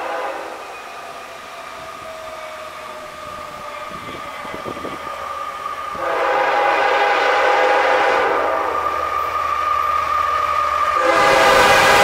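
CSX diesel freight locomotive's air horn sounding a long, steady multi-note chord as the train approaches, with the rumble of the train under it. It gets louder in two sudden steps, about six and eleven seconds in.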